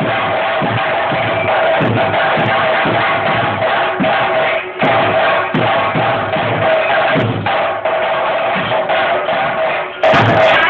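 Ritual drumming for a Muthappan theyyam: rapid, dense strokes of chenda drums over a steady held note, briefly dropping out just before the end.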